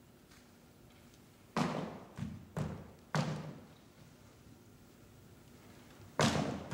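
A series of heavy, sharp thuds that ring on in a large echoing space: four in quick succession about one and a half to three seconds in, then one more near the end.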